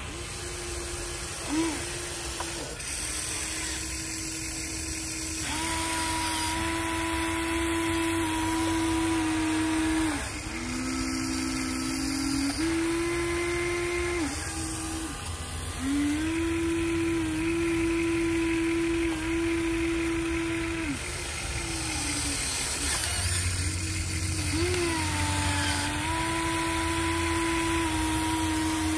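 Electric gear motors of a Huina 1593 RC excavator whining as the boom, arm and bucket are worked. The whine runs in stretches of a few seconds, stopping and restarting, and dips lower for a couple of seconds near the middle.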